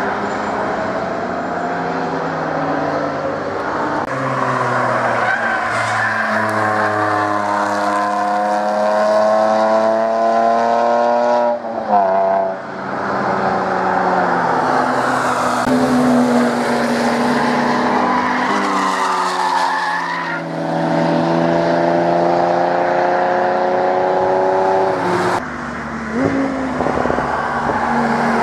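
Several sports cars driven hard past a trackside microphone, one clip after another. Their engines rev up through the gears with a climbing pitch, drop at each shift or lift, and climb again, with abrupt changes where the clips are cut together.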